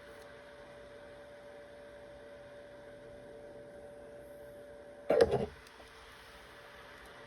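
Steady faint electrical hum, broken about five seconds in by a short loud clatter of a few quick knocks.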